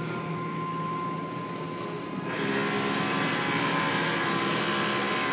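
Automatic tunnel car wash equipment running, heard from inside the car: a steady machine noise with a constant high tone. About two seconds in it grows into a louder hiss as foam and water pour over the hood.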